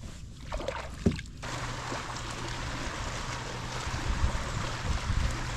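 Water trickling and lapping around a kayak, heard as an even hiss that sets in abruptly about a second and a half in, after a single sharp click.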